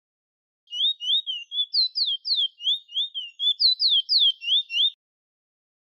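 Chestnut-bellied seed finch ('bullfinch') singing one song phrase of quick, clear whistled notes, each a short slurred glide, about four a second. The phrase starts under a second in and stops about a second before the end.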